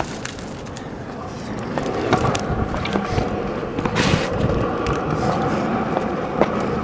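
Stunt scooter wheels rolling over rough asphalt, a steady rumble that builds about two seconds in as the rider picks up speed. Sharp clicks and knocks of the scooter on the ground come at the start, about four seconds in and near the end.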